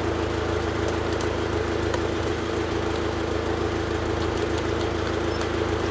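Mazda B2600 pickup's four-cylinder engine idling steadily, heard at the tailpipe of a custom stainless steel exhaust with a Magnaflow XL muffler and a Vibrant Ultra Quiet resonator.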